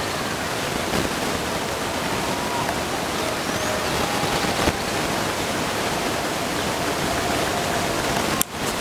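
Steady, even outdoor hiss, with faint distant voices now and then; the hiss drops out briefly near the end.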